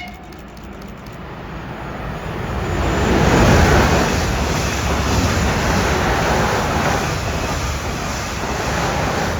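Train passing the platform at speed: a rushing noise of wheels on rails and moving air that builds over about three seconds and then holds steady.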